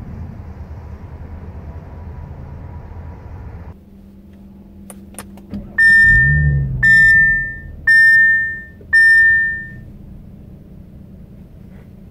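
2018 Audi S5's turbocharged V6 idling, heard from behind at the exhaust. Then it is heard faintly from inside the cabin: two clicks, then four loud, ringing warning chimes from the car, about one a second.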